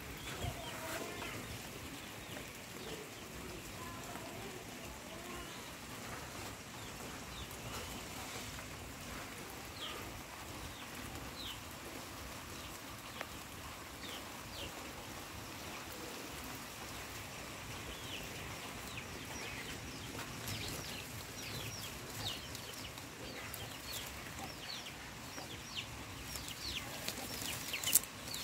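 Birds chirping: short, high, falling peeps that come more and more often in the last third, over a steady hiss. A sharp click near the end is the loudest sound.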